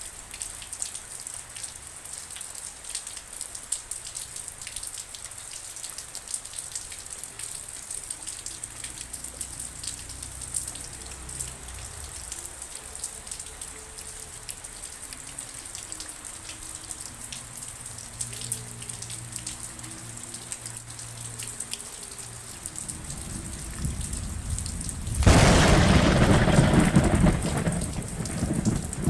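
Steady rain falling, with many single drops ticking. A low rumble of thunder builds through the middle, and a loud thunderclap breaks about 25 seconds in and rolls for a few seconds before easing off.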